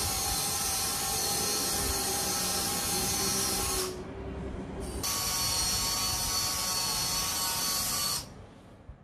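Servo motors of a four-legged UBTECH kit robot whining steadily as it walks. They stop for about a second about four seconds in, and again near the end.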